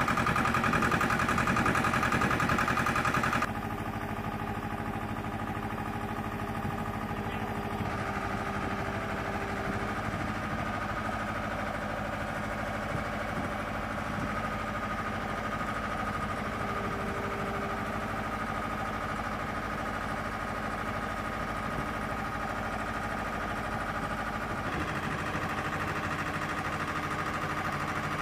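Flight-line equipment engine idling with a steady hum and a few constant tones. The sound drops in level suddenly about three and a half seconds in and shifts again near the end.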